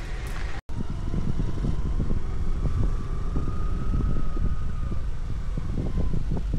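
Road vehicle on the move: a steady low engine and road rumble with frequent small knocks from the rough ride, and a faint whine that rises slightly and then falls away through the middle. The sound drops out briefly about half a second in.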